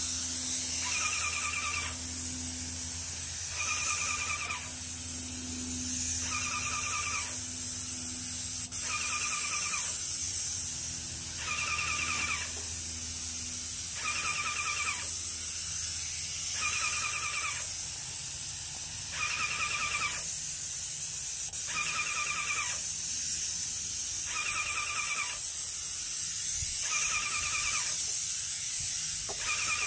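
Airless paint sprayer's gun hissing steadily as it sprays paint. A short high squeal repeats about every two and a half seconds, over a low steady hum.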